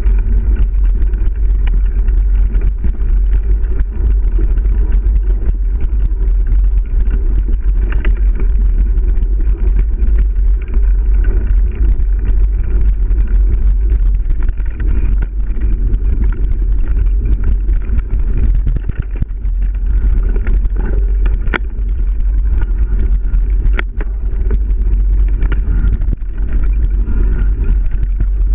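Mountain bike ridden fast over dirt singletrack, heard through a GoPro in its housing: a steady low rumble of wind buffeting and trail bumps coming through the mount, with bike rattle and two sharp clicks about three quarters of the way in.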